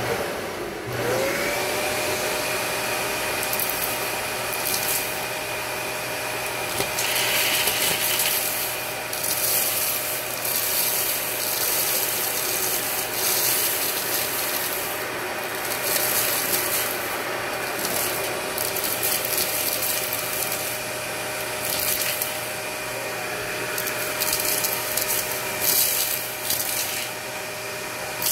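Dyson Ball Multifloor upright vacuum switching on, its motor whine rising to a steady pitch about a second in, then running steadily. Rice, candy and rhinestones rattle and crunch up the wand as it sucks them off the carpet.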